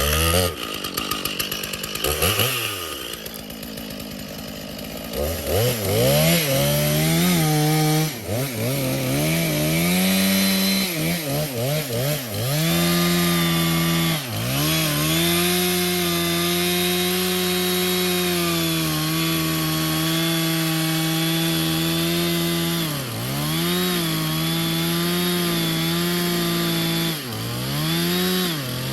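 Stihl chainsaw running at high revs while cutting a wedged log free. Its engine pitch dips and recovers several times as the throttle is eased and opened again.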